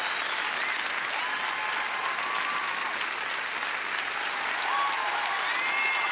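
Large ice-arena audience applauding steadily, with a few cheers rising above the clapping.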